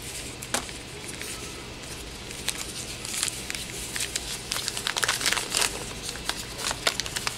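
Paper wrapping crinkling and rustling as it is unfolded by hand, in scattered crackles that grow busier after about two and a half seconds.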